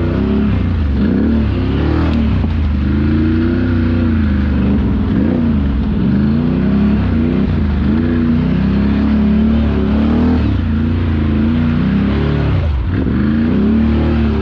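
Can-Am Renegade 1000 XMR ATV's V-twin engine revving up and down over and over under throttle, its pitch rising and falling every second or two, with a brief drop in revs near the end.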